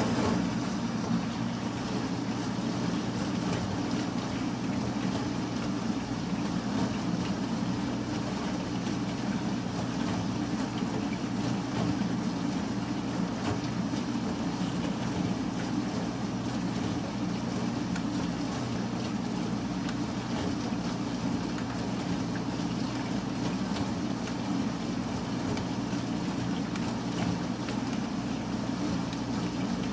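Weima industrial shredder running steadily under load as it shreds clothing and textiles: a continuous low drone of motor and rotor, even throughout, with no distinct impacts.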